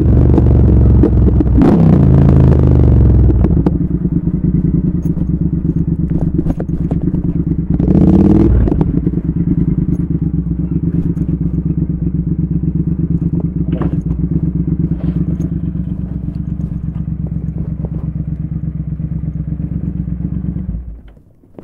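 Triumph Speed Twin 1200's parallel-twin engine slowing down over the first few seconds, then idling steadily, with one brief rise and fall in revs about eight seconds in. Near the end the engine is switched off and cuts out suddenly.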